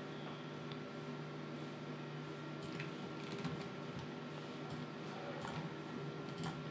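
Steady low hum of room tone, with a few faint computer mouse and keyboard clicks from about halfway through.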